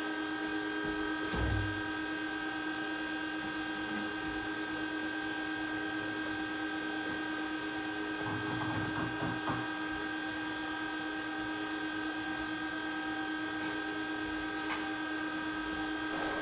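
Steady mechanical or electrical hum made of several fixed tones, with a few short, dull low thumps: one about a second and a half in, and a cluster around the middle.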